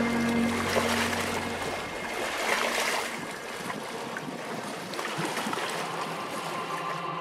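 Lake water splashing and lapping in a steady rushing wash. Background music fades out under it in the first second and a half.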